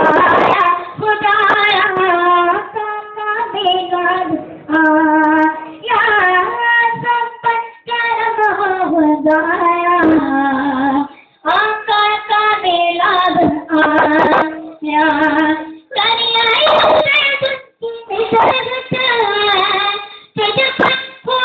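A boy's voice singing a naat, an Urdu devotional song, in long held melodic phrases that glide up and down, with brief breaks for breath between them.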